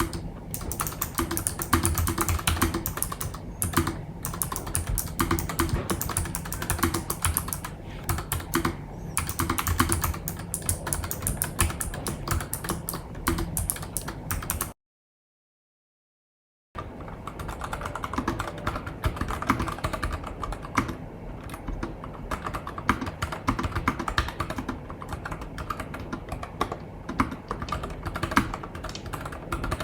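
Fast, continuous typing on a NuPhy Air75 low-profile mechanical keyboard with non-clicky red linear switches: a dense patter of key clacks. It stops dead about halfway through for roughly two seconds of silence, then resumes.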